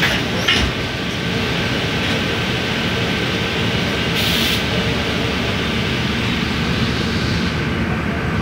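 A bus heard from inside the cabin while it drives along its busway: steady engine and road noise with a faint whine, and a brief hiss about four seconds in.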